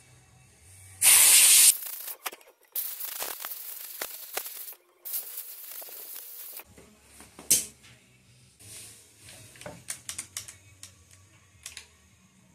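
Compressed-air blow gun hissing in three blasts, the first short and loudest, blowing dust out of a chainsaw's air filter; light clicks and taps of handling follow.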